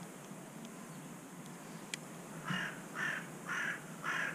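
A crow cawing: a run of four harsh caws about two a second, starting about two and a half seconds in. A faint click shortly before it.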